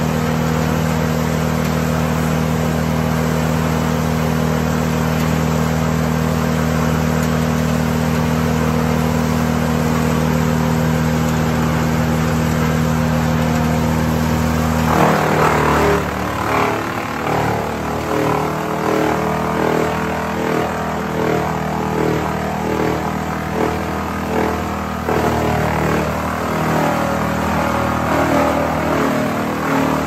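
Morbark 16-inch wood chipper running at a steady engine speed. About halfway through, leafy tree limbs start feeding into it: a sudden crunching surge, then the chipper chews through the branches while the engine note dips and recovers roughly once a second under the load.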